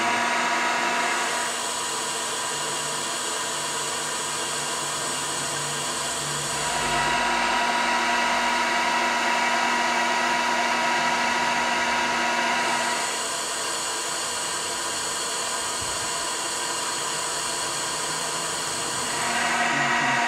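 Hair dryer's fan motor running steadily at full speed with the heat off, working as a fume extractor that sucks air through a hose and funnel. Its sound dips a little twice, for about five seconds each time.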